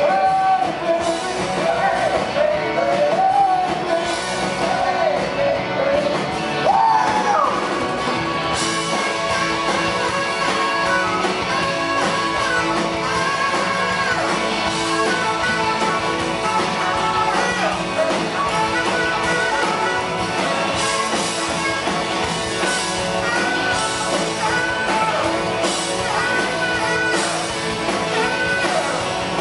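Live rock band playing with electric guitars, bass, drums and keyboards in a large hall. A sung lead vocal in the first few seconds gives way to a saxophone lead over the band.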